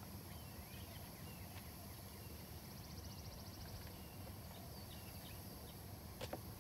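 Quiet outdoor ambience: scattered small bird chirps and a short fast trill over a steady low rumble, with a single sharp tap near the end.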